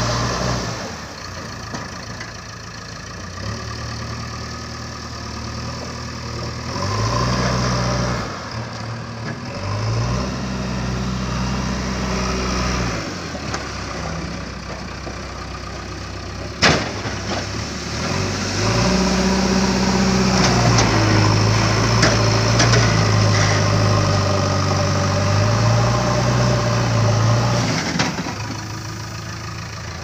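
JCB 3DX backhoe loader's diesel engine running, its revs rising and falling several times as the front loader bucket works gravel. A single sharp knock about 17 seconds in.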